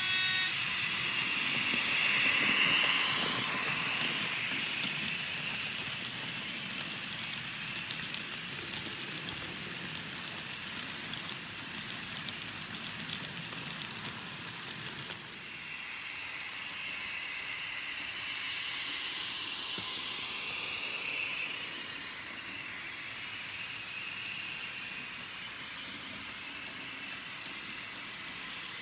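HO-scale model train running: a model BB 67601 diesel locomotive hauling three-axle tank wagons, its motor running and the wheels rolling and ticking on the rails. It swells twice as the train passes close, near the start and again in the middle.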